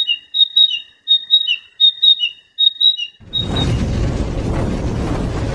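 A sikatan emas, a Ficedula flycatcher, singing a rapidly repeated two-note phrase, a high note dropping to a lower one, over a faint steady tone. About three seconds in the song stops and loud, rumbling intro music takes over.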